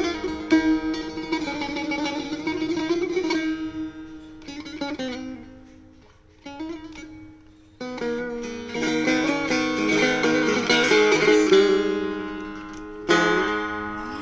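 Persian setar by the maker Mafakheri played solo, with quick plucked phrases that fade into a few sparse, quieter notes about midway. A busier run of notes follows, and one strong stroke rings out near the end.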